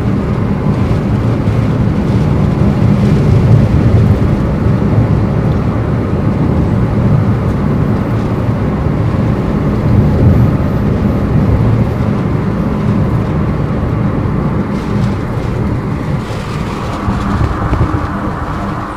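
Steady low rumble of a car being driven, engine and tyre noise on the road heard from inside the cabin.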